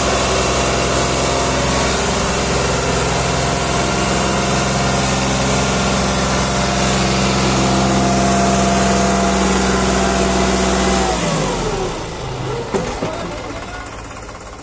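New Holland 3600-2 tractor's three-cylinder diesel engine running steadily at high revs, straining to pull a fully loaded trolley through soft sand. About eleven seconds in, the revs drop away and the engine sound falls off and fades.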